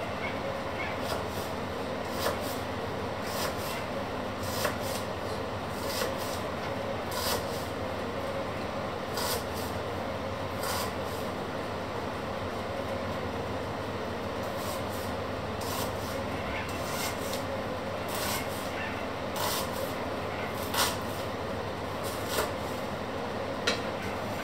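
Kitchen knife slicing through a peeled onion onto a wooden cutting board, each cut ending in a sharp tap on the board, about one every second or so with a few pauses. A steady rushing noise runs underneath.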